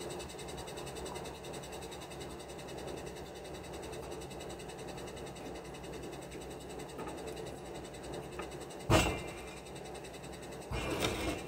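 Concrete formwork panel handled against the formwork: a single sharp knock about nine seconds in, then a rougher clatter lasting about half a second near the end, over a steady background noise.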